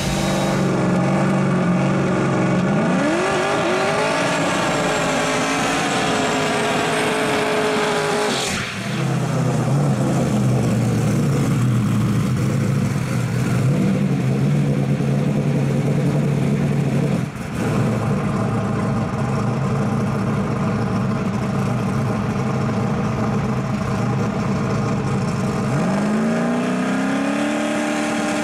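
Drag-racing Chevy S-10 pickup engines running loud and revving in three spliced clips. The pitch climbs about three seconds in and holds high, cuts to a steady hard pull about eight and a half seconds in, cuts again around seventeen seconds, and climbs once more near the end.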